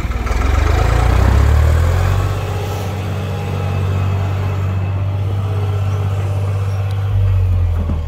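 Vehicle engine running close by, swelling louder and slightly higher about a second in, then running steadily.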